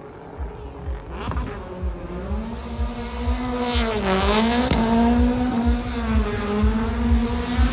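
Rally car engine revving hard as the car drifts, its pitch rising and falling with a marked dip about four seconds in. It grows louder over the first few seconds.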